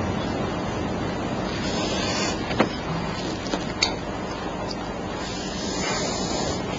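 Steady background hiss, with two brief light clicks about two and a half and four seconds in.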